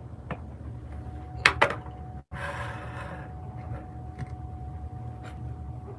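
Handling noise as a phone camera is moved and turned around: two sharp knocks about a second and a half in, then a brief rustle, over a low steady room hum. The sound drops out for an instant just before the rustle.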